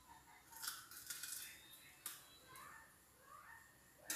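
Faint knife-and-hand handling sounds as a green bell pepper's core and seeds are cut out at a sink: soft scattered clicks and scrapes.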